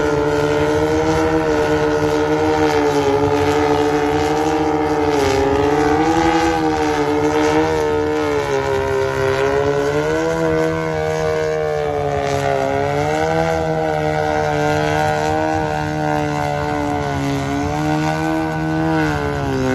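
Heavy-lift multirotor drone hovering, its propellers giving a steady buzz whose pitch wavers up and down as the motors keep adjusting speed to hold position.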